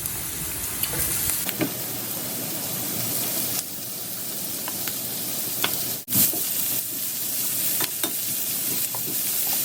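Julienned chayote, onion and garlic sizzling in olive oil as they stir-fry, with a few light clicks from the stirring utensil. The sizzle drops out briefly about six seconds in.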